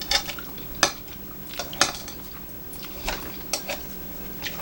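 Eating utensils clicking and clinking against dishes at a table, a scattered series of short sharp clicks.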